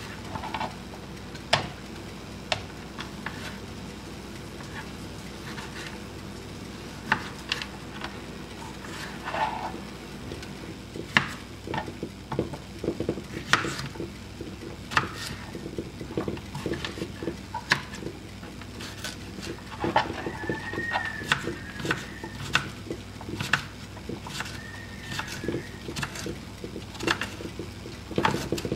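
Kitchen knife chopping cherry tomatoes and then a cucumber on a cutting board: irregular sharp taps of the blade hitting the board, sparse at first and coming faster from about a third of the way in.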